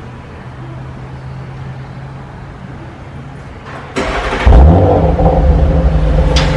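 An Audi RS car's engine starting: a steady low hum, then about four seconds in a sudden loud start-up flare, which settles into a loud, steady fast idle.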